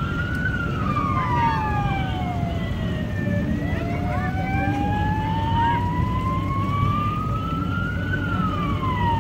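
Emergency-vehicle siren wailing. Its pitch falls over a few seconds, then climbs slowly and falls again, over a steady low rumble of vehicle engines.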